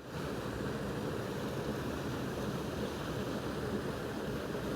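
Steady outdoor rushing noise with no distinct events, strongest in the lower and middle range.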